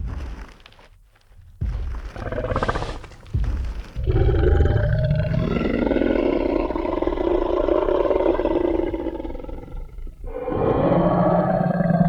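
Tyrannosaurus rex sound effect: three heavy stomps about a second and a half apart, then one long, deep roar lasting about six seconds, and a second roar beginning near the end.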